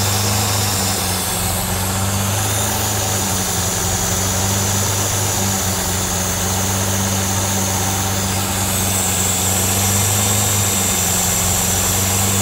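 Lamborghini LM002's 48-valve V12 idling steadily, with a hiss of air drawn through the carburettor intakes over the engine note. The carburettor banks are being balanced by ear, and one side still sounds sharper and louder than the other: the banks are not yet drawing evenly.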